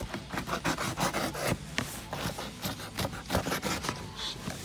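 Irregular scratchy rubbing and scraping of cardboard shipping packaging being handled close up, over a low steady hum.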